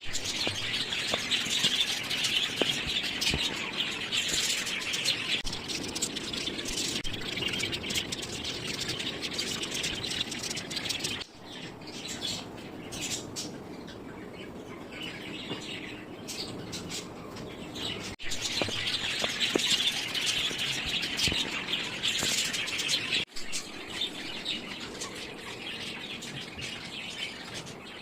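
Many small birds chirping together, a dense overlapping chorus, cut off and resumed abruptly a few times.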